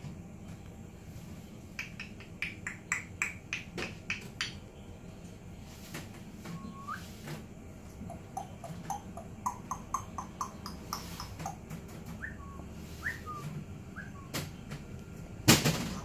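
African grey parrot whistling and calling: a quick run of sharp chirps, then short rising whistles and a string of quick notes. A loud thump near the end.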